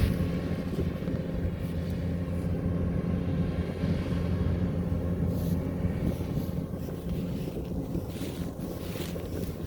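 Rice harvester's engine running steadily, a constant low hum, with a few faint clicks in the second half.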